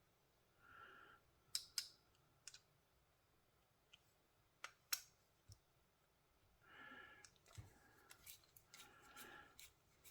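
Faint, scattered small metal clicks and ticks of a bit driver and small knife parts being handled while a folding knife's screws are being taken out, with a few faint short squeaks.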